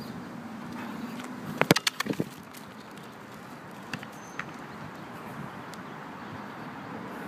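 A soccer ball kicked hard across asphalt about one and a half seconds in, a sharp smack followed by a couple of quick bounces, over steady city traffic background with a few faint ticks later on.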